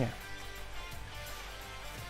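Soft background music playing between narration.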